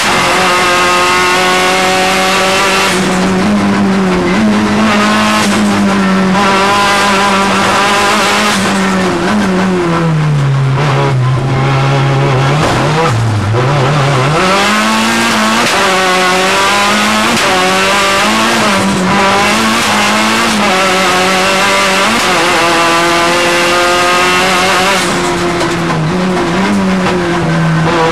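Audi A3 race car's engine heard from inside the cockpit, driven hard at high revs. About ten seconds in the revs fall away for a few seconds, dip lowest near the middle, then climb back up and hold high again, with smaller dips and rises later on.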